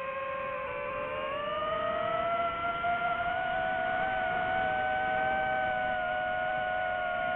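DJI FPV drone's motors and propellers whining in flight, a steady several-toned whine that rises in pitch about a second or two in and then holds.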